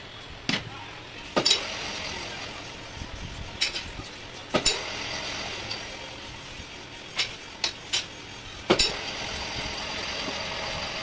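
Metal lathe turning a motorcycle wheel's brake drum, the cutting tool scraping the drum with a steady high hiss. Several sharp metallic clinks break in, some ringing briefly.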